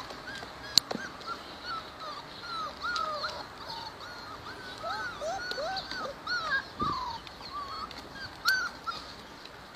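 Several young puppies whining together, a continuous stream of short, high, overlapping cries. A sharp click about a second in, and another near the end.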